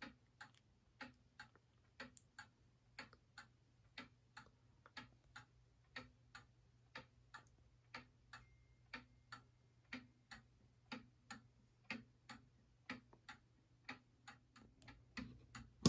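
Ansonia gingerbread kitchen clock ticking faintly, about two ticks a second, with tick and tock unevenly spaced: the clock is a little out of beat.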